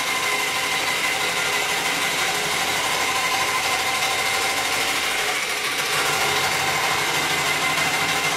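Electric motor and spinning roughening cutter of a DC-30 desktop hot-glue perfect binder running steadily, a whine with several level tones, as the cutter carriage is pushed along the book spine to rough it up before gluing.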